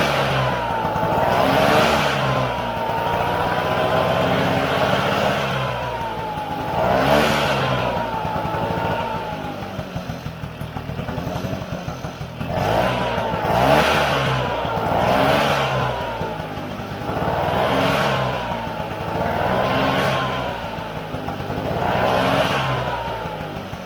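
Freshly rebuilt Vespa PX two-stroke single-cylinder engine running on its first start after the rebuild, the throttle blipped over and over so the revs rise and fall every second or two, with a lower, steadier stretch about halfway through.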